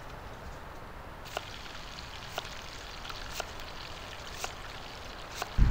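Knife blade slicing through an onion onto a wooden log-slice cutting board: five sharp chops, about one a second. A loud frying sizzle cuts in right at the very end.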